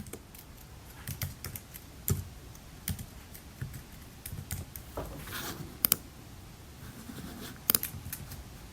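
Keys being pressed in irregular clicks as a calculation is typed in, with a few sharper, louder clicks near the end.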